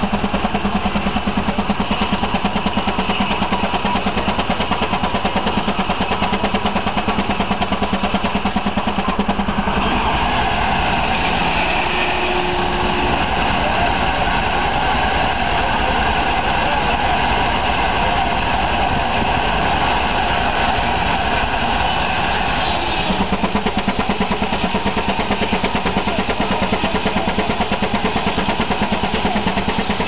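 Case 40 hp steam traction engine running under belt load on a sawmill, its exhaust chuffing in a fast, even beat, with the mill machinery running alongside.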